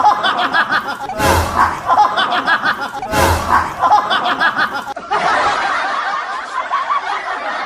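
Canned laughter sound effect: a short snickering laugh repeated three times about two seconds apart, each start marked by a low thump, then steadier laughing for the last few seconds.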